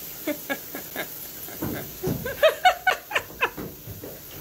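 A domestic cat meows in a rapid run of about a dozen short cries, each falling in pitch, loudest toward the middle of the run, as it slips off a bathtub faucet into the tub.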